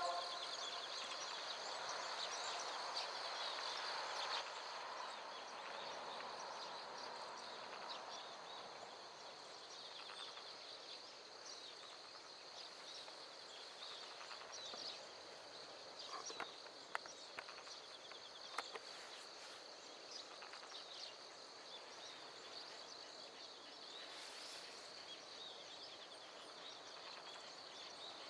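Outdoor ambience dominated by insects chirring steadily at a high pitch, with scattered bird calls. A broad rushing sound fades away over the first several seconds, and a few sharp clicks come just past the middle.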